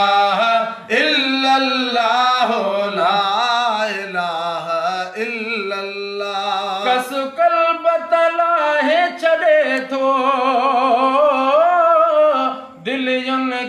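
A man's voice singing a devotional Sindhi chant unaccompanied, in long, drawn-out notes with wavering ornaments.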